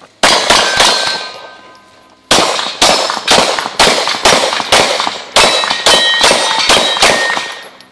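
Handgun shots in two strings: three quick shots, a pause of about a second and a half, then roughly a dozen shots at about two a second. Thin ringing tones linger after many of the shots, typical of steel plate targets being hit.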